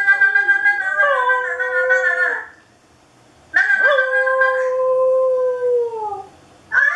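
Small shaggy dog howling: two long howls with a short pause between, the second one sliding down in pitch as it ends.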